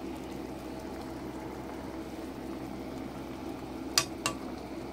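Fish steaks simmering in sauce in a frying pan: a steady bubbling hiss over a low steady hum, with two sharp clicks about four seconds in.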